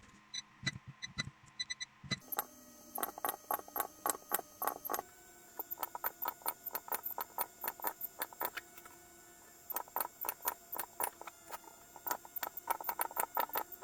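Battery spot welder firing a rapid run of sharp clicks, several a second, as connecting strips are welded onto lithium-ion cells, with a short pause about two-thirds of the way through.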